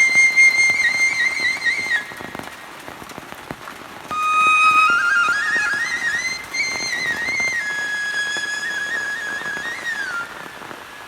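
Flute music playing a slow, ornamented melody over the steady patter of rain. The flute pauses for about two seconds, leaving only the rain, then returns.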